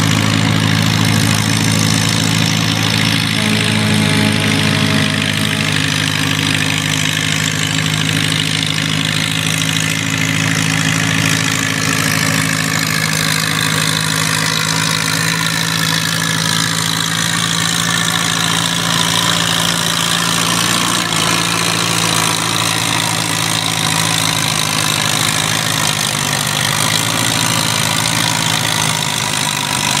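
Farmall M farm tractor engine running steadily under load as it pulls a weight-transfer sled, a constant low drone with no revving.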